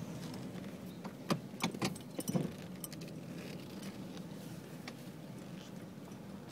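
Car running at low speed, its hum heard from inside the cabin, with a short cluster of light, irregular clicks and rattles a little over a second in.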